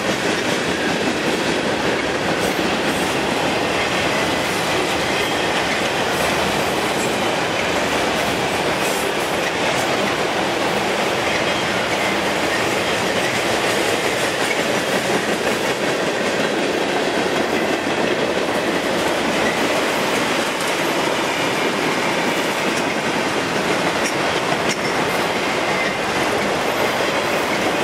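Freight cars, mostly autoracks, rolling past at steady speed, their steel wheels running on the rails in an unbroken, even rumble.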